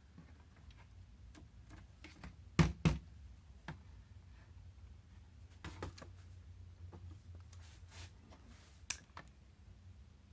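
Faint scattered clicks and light knocks from handling an opened laptop and its battery, with two sharper clicks close together about two and a half seconds in.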